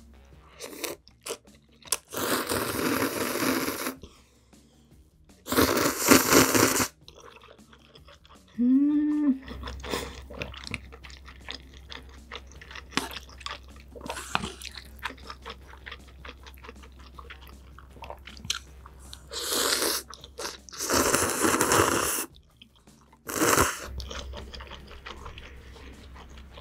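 Close-miked eating of spicy instant ramen: several loud slurps of noodles and broth, each a second or two long, with wet chewing and small mouth clicks in between.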